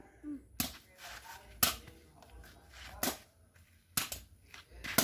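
Machete blows chopping into a log for firewood: about five sharp chops, unevenly spaced.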